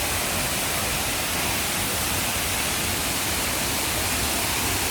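Waterfall rushing steadily: an unbroken, even hiss of falling water with no change in level.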